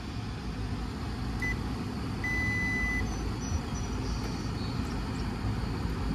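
Steady low rumble with a few high-pitched electronic beeps of uneven length: a very short one about a second and a half in, then a longer one of nearly a second.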